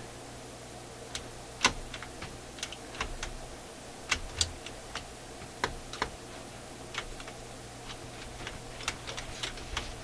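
Light, irregular metallic clicks and taps from the steel levers, push rod and springs of a vintage record player's changer mechanism being moved by hand, over a steady low hum.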